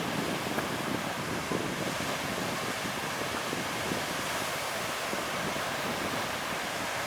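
Sea waves washing onto a beach, a steady rush of surf with wind buffeting the microphone.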